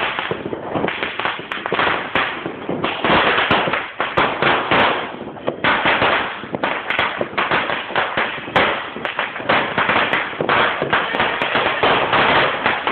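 Firecrackers and fireworks going off, a dense, unbroken crackle of many overlapping bangs and pops with louder reports throughout.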